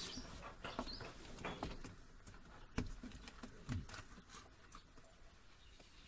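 Scattered small crackles, clicks and rustles of a stuck rubber gasket being pulled off a metal floor panel by hand, with one sharper click about three seconds in.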